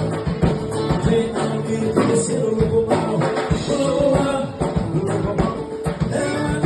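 Upbeat live music with singing over a steady percussive beat.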